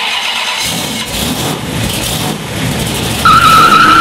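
Car engine and tyre noise, then a loud, wavering high-pitched tyre squeal starting about three seconds in.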